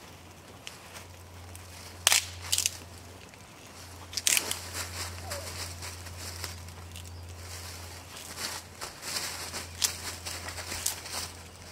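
Knife shaving a wooden stick in short scraping cuts, with a few sharp snaps about two and four seconds in, over a small campfire crackling.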